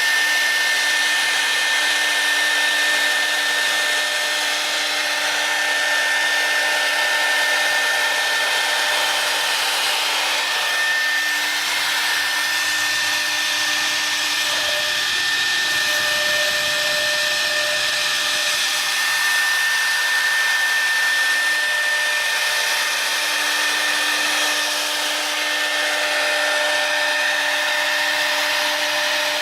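4-axis CNC router carving a curved surface, its spindle running with a steady high whine over continuous cutting noise.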